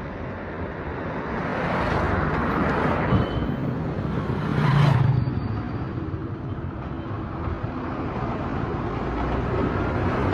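Motor vehicle passing close by on the road, its engine and tyre noise swelling to a peak about halfway through and then fading, over steady street traffic.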